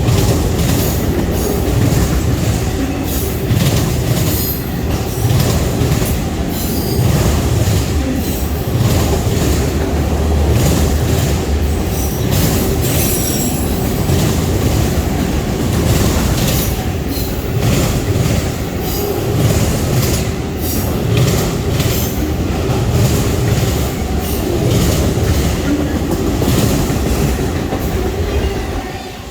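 A train rolling past close by: a steady heavy rumble with wheels clicking over rail joints and a brief high wheel squeal about halfway. The noise falls away near the end as the train clears.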